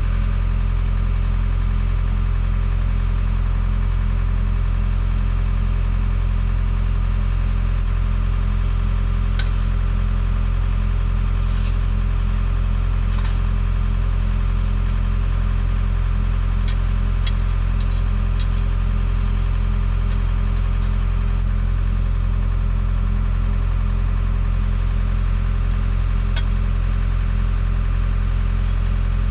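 New Holland skid steer's diesel engine idling steadily, with a scattering of short sharp clicks midway and once more near the end.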